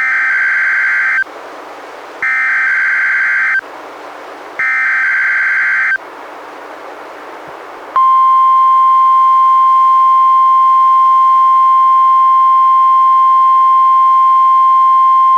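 NOAA Weather Radio Required Weekly Test received on a Reecom R-1630 weather radio. Three short bursts of buzzy SAME digital header data, each about a second long, are followed about two seconds later by the steady 1050 Hz warning alarm tone, which holds to the end.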